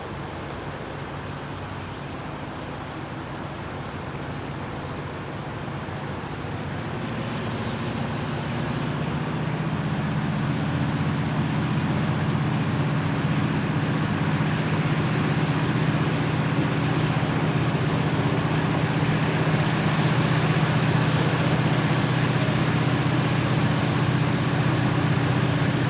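Diesel engines of approaching Florida East Coast Railway freight locomotives, under power, a steady low drone growing steadily louder as the train nears.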